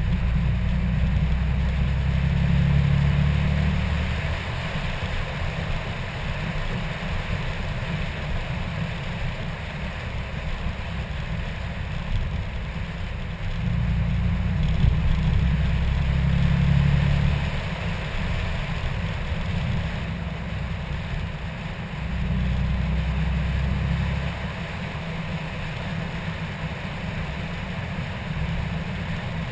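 A car driving at moderate speed, heard as a steady low rumble of engine and wind. The rumble swells louder three times for a few seconds each.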